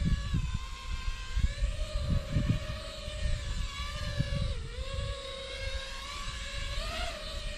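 iFlight XL5 FPV quadcopter in flight, its motors and propellers giving a steady buzzing whine. The pitch dips about four and a half seconds in and rises briefly near the end as the motor speed changes. Gusts of wind rumble on the microphone.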